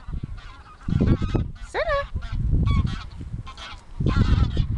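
Geese honking repeatedly, many short calls that bend up and down in pitch, with loud bursts of low rumbling noise about a second in and near the end.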